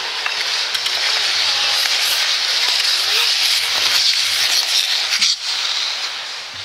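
Short-track speed skate blades hissing and scraping on ice as a group of young skaters pushes past close by; the hiss fades near the end as they move away.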